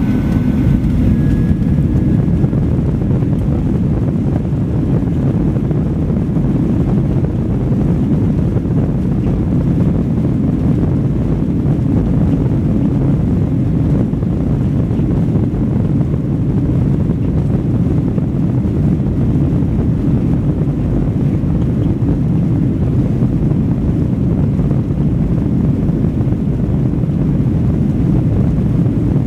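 Airliner cabin noise: a steady low rumble of engines and airframe heard from inside the plane as it moves on the ground.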